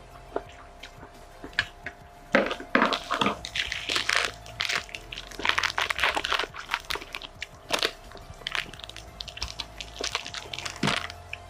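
A person eating spicy instant noodles with crunchy crackers close to the microphone: a run of crackling bites and chewing crunches from about two seconds in to near the end.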